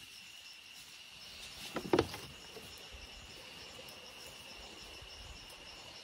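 Night insects chirring steadily at one high pitch, with a single short knock about two seconds in.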